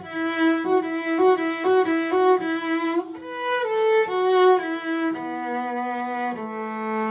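Cello music: a bowed melody in short notes that moves to longer held notes, with a lower held note joining about five seconds in.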